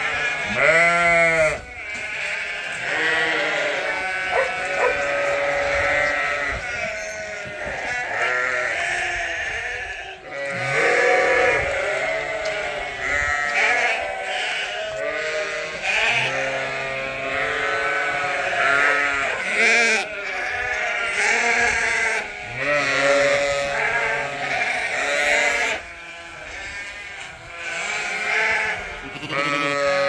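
A flock of Suffolk and Dorset sheep and lambs bleating repeatedly, many calls overlapping, as they clamour for bottled milk.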